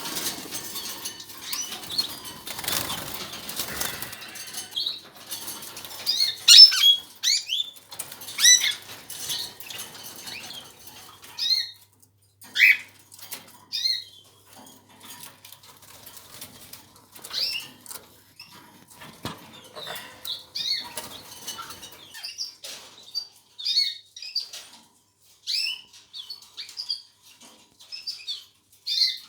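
Canaries giving short, separate chirps with wings flapping, and a rustling flurry of wingbeats in the first few seconds.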